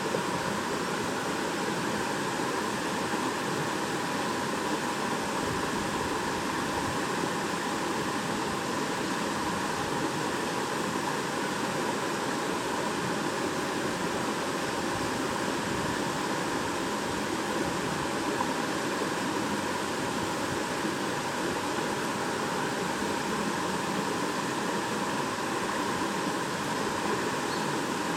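Shallow stream babbling over rocks, a steady even rush of flowing water.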